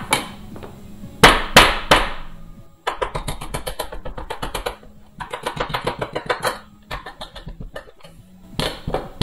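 Upturned non-stick cake pan being whacked repeatedly to knock loose a cake stuck inside the ungreased pan. Three heavy knocks about a second in, then long runs of rapid strikes, several a second, and a few more hits near the end.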